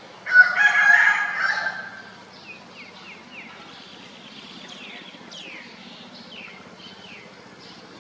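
A rooster crowing once, loud and lasting under two seconds, followed by a run of faint short falling chirps.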